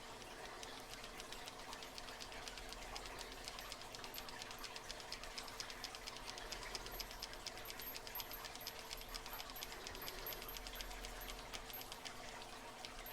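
SouthOrd tubular lock pick being turned in an American tubular lock as it is picked, giving a rapid, faint train of fine metallic clicks.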